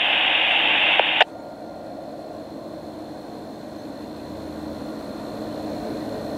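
Scanner radio hiss for just over a second, cut off abruptly as the squelch closes. Then the distant, steady drone of the freight train's diesel locomotives, growing slowly louder as the train approaches.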